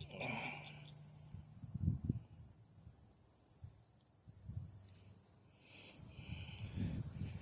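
Steady high insect trill, with a few low muffled bumps and rustles from handling near the microphone.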